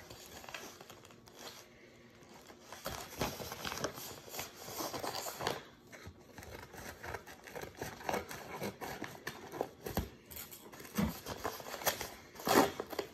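Scissors cutting open a padded paper mailer in irregular snips, with the envelope crinkling as it is turned and handled.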